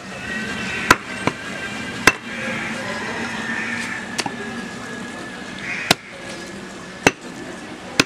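Butcher's cleaver chopping goat meat on a wooden log chopping block: sharp, irregular strikes about a second apart, some loud and some lighter, about seven in all.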